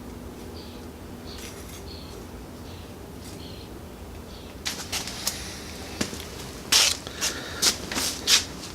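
Faint steady background, then from about halfway a run of sharp clicks and clinks: small metal parts, the worn clutch friction plates, being picked up and handled.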